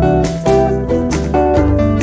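Background music: a quick melody of short plucked notes over longer held bass notes.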